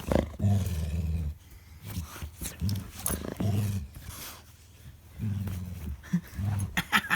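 Pet dog growling in play while mouthing a person's hand: a series of short, low growls, one after another, with knocks and rustling between them.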